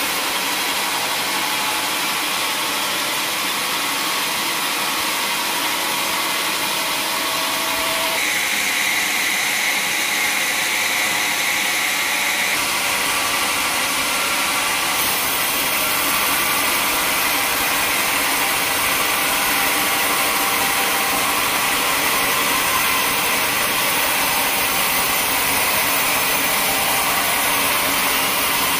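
Band sawmill running with its blade cutting lengthwise through a teak log, a steady mechanical drone under a hissing sawing noise. The sound changes abruptly about eight seconds in and again about four seconds later.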